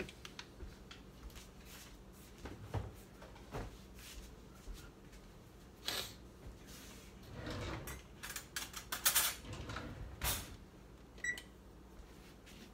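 Scattered knocks, clinks and clatters of pans and utensils being handled at a stovetop, thickest about two thirds of the way through, with one short high electronic beep near the end.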